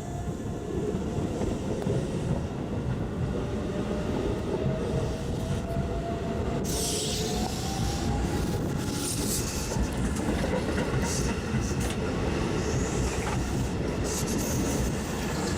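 Hokuso Line electric train running past on the rails with a steady rumble and a motor whine rising in pitch over the first eight seconds. Patches of high hiss come in from about six and a half seconds in.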